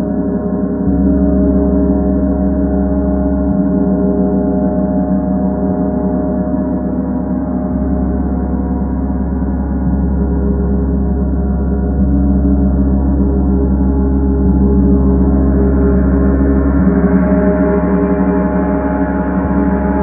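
Paiste symphonic gong played continuously with soft repeated strokes: a dense, sustained wash of many overlapping ringing tones. The deep low tone changes every few seconds as new strokes land, and the sound grows brighter about three-quarters of the way through.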